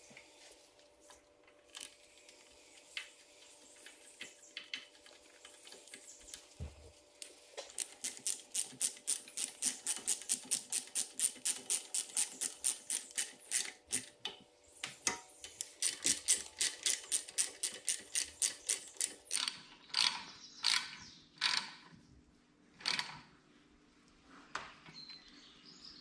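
Socket ratchet clicking in quick, even strokes, about three or four clicks a second, as the nuts holding the turbocharger to its mounting are tightened down on a new gasket. Near the end the strokes slow to a few single, sharper clicks.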